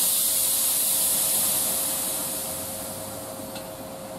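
A loud hiss of compressed air venting from the standing ET4A electric multiple unit starts suddenly and fades away over about three seconds. A steady electrical hum from the train runs beneath it.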